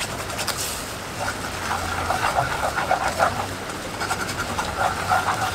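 A wooden spatula stirring and scraping across a cast-iron pan, heard as quick, uneven strokes starting about a second in. Under it is the bubbling of a sugar and orange-juice sauce boiling hard as it begins to caramelise.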